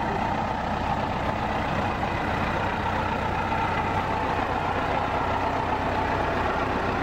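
Small diesel engine of a narrow-gauge field railway locomotive running steadily as the locomotive rolls slowly past.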